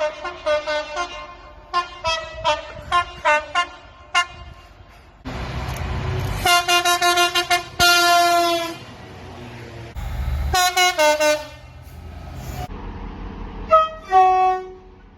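Train horns sounding: a rapid run of short multi-note toots, then several longer blasts that start and stop abruptly. Low rumble sits under some of them.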